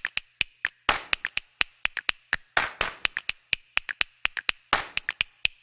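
Percussive background music: a quick rhythmic pattern of sharp clap-like hits, with a heavier hit about every two seconds.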